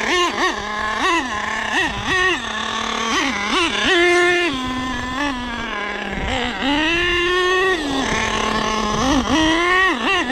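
Nitro RC monster truck's small glow-fuel engine revving in repeated throttle bursts: the pitch jumps up and drops back to idle many times, with a few longer held runs.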